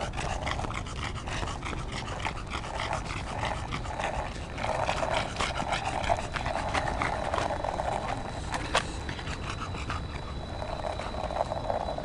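Bulldog panting hard and fast while riding a skateboard, over a steady low rumble of the board's wheels rolling on asphalt. A single sharp click about nine seconds in.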